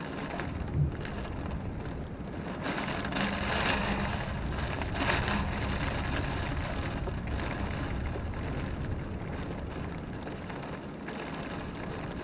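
Wind-driven rain beating on a window pane, a steady hiss with a low rumble underneath, swelling louder in gusts a few seconds in. A brief low thump about a second in.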